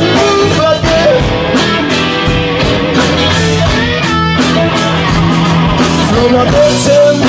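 Live band playing a blues song on electric guitars, bass guitar and drums.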